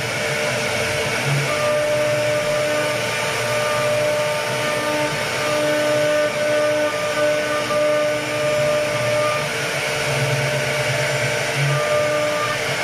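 Automated CNC router running on wood: a steady, noisy whir with several held tones that cut in and out every second or so.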